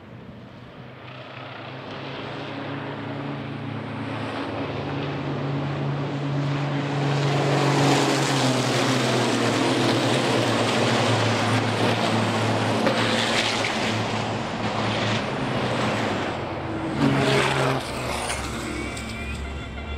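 Several turbodiesel race trucks running hard at high revs as they pass close by. The sound builds over the first several seconds and then holds steady, with a brief louder burst near the end.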